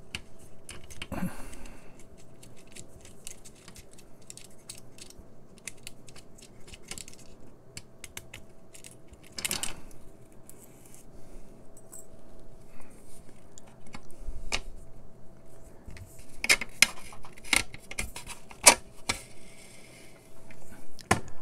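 Scattered small clicks, taps and scrapes of a plastic lamp base plate being handled and worked free by hand, with a few sharper clicks near the end.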